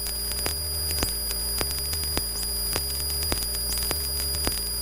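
Light aircraft cockpit sound, likely through the intercom, during the climb after take-off: a steady low engine drone under a steady high-pitched electrical whine. Irregular sharp clicks and a rising high chirp about every second and a half run through it.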